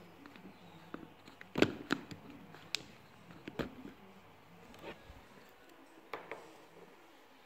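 Handling noise as a smartphone is lifted out of the fitted tray of its cardboard box: a scatter of light knocks, taps and scrapes of phone and box, the loudest about a second and a half in.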